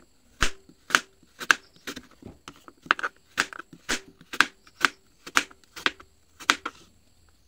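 Kitchen knife slicing through peeled taro root and striking a plastic cutting board, a steady run of sharp chops about two a second that stops shortly before the end.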